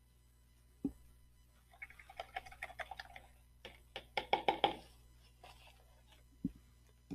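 A single knock, then two quick flurries of rapid light tapping and clinking of small hard objects, and another knock near the end.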